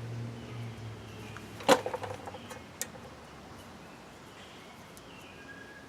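A sharp clank, with a short ringing rattle after it, then a lighter click: metal tools or parts being handled while a truck's front suspension is taken apart. Birds chirp faintly in the background, and a low hum stops about two seconds in.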